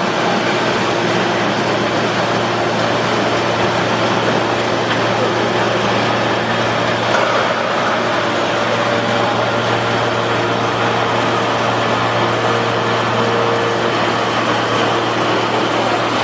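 160-ton hydraulic scrap metal baler running: steady, loud machine noise with a constant low hum.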